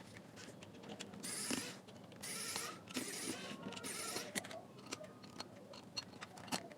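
Small hand tools working on the plastic and metal parts of a JBL Flip Bluetooth speaker during disassembly: scattered light clicks and four short scraping rasps in the first half.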